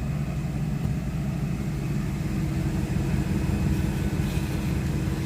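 Steady low rumble and hum of a diesel-hauled train, heard inside the sleeper coach.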